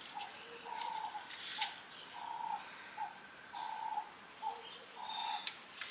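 A dove cooing over and over in a short-note-then-long-note phrase that repeats about every second and a half, with small birds chirping. A few sharp clicks, the loudest about one and a half seconds in.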